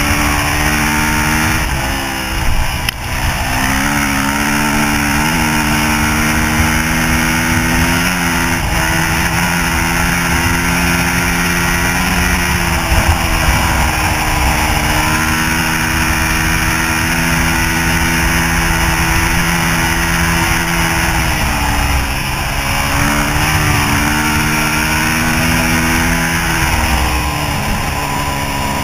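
Yamaha YZ426F four-stroke single-cylinder dirt bike engine running under way, heard from the rider's chest. Its pitch dips and climbs again several times as the throttle is worked.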